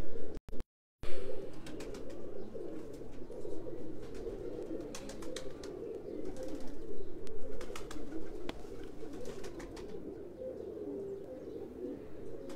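Many domestic pigeons cooing together, a steady, overlapping chorus with scattered faint clicks. The sound cuts out completely for about half a second near the start.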